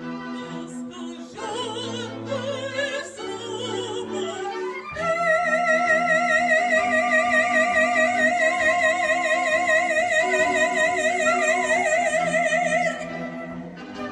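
Operatic soprano with string quartet and flute. Over held string notes, the voice slides upward about five seconds in and sustains one long, loud high note with a wide vibrato for about eight seconds, then releases it near the end.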